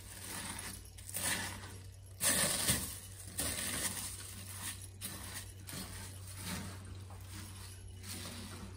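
Spatula stirring corn flakes coated in melted chocolate in a stainless steel saucepan: irregular scraping and rustling strokes, the loudest a little over two seconds in, over a faint steady low hum.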